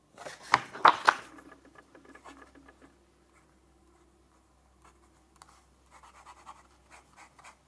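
A few loud knocks and rustles as the paper notebook is handled in the first second or so. Then, from about five seconds in, a fine-nib fountain pen (Navalur Eclipse) scratches across 90 g/m² Fabriano Ecoqua paper in short writing strokes.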